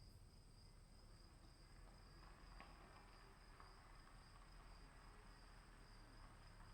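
Crickets chirping in a faint, steady, unbroken trill.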